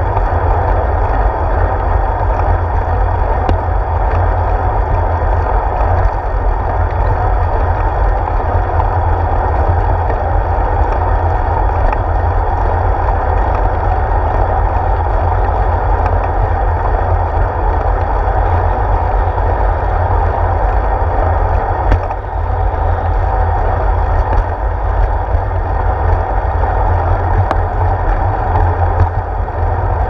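Wind rumble and road vibration from riding a bicycle, picked up by a handlebar-mounted GoPro Hero 4: a steady low rumble with hiss over it and a few brief clicks from bumps.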